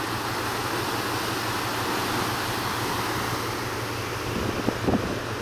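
Wind blowing across the microphone over the rush of a cruise ship's wake churning astern, a steady noisy roar with a low steady hum underneath.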